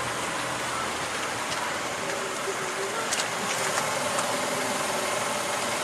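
Car engine running steadily at idle, with a few faint ticks about three seconds in.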